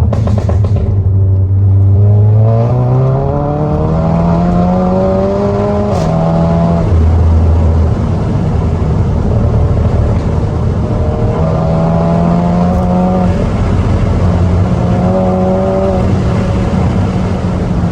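Tuned SEAT Cupra's turbocharged four-cylinder, with downpipe and resonator deleted, accelerating hard. Its pitch climbs for about six seconds, then drops with a sharp crack at the gear change, and it pulls up through the revs twice more.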